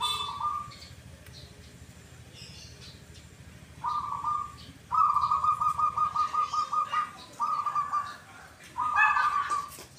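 Zebra dove (perkutut) cooing: short phrases of staccato coos, with a fast rolling run of notes lasting about two seconds in the middle. Faint higher chirps from another bird come in about two and a half seconds in.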